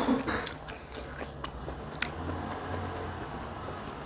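Close-up mouth sounds of a person chewing a mouthful of food: small wet clicks and smacks, with a louder short sound right at the start.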